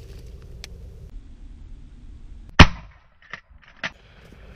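A single close, very loud shotgun shot about two and a half seconds in, trailing off quickly. Two fainter sharp clicks follow about a second later.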